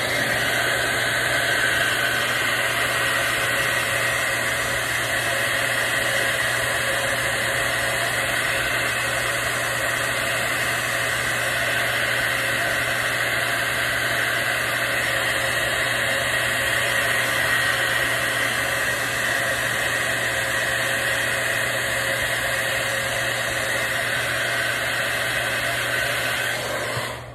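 Handheld hair dryer running on its cool setting: a steady blowing rush over a constant motor hum, switched off just before the end.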